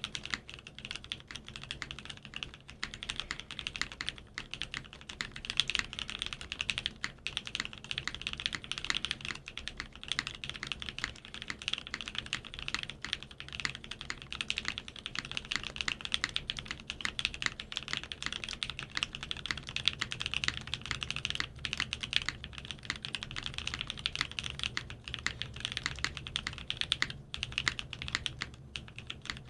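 Continuous fast typing on a Monokei KFE CE mechanical keyboard with a carbon fiber plate, unlubed Magic Girl switches on 56g triple-stage springs, and DSA-profile double-shot keycaps: a dense, steady stream of key clacks.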